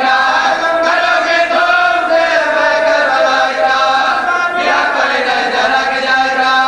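A group of men's voices chanting an Urdu marsiya in chorus, a lead reciter with supporting voices holding long, slowly moving notes, with no instruments.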